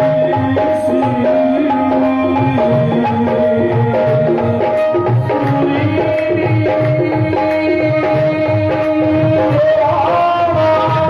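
Qawwali music: held harmonium-like chords over a steady hand-drum beat of about two to three strokes a second, with singing voices rising near the end.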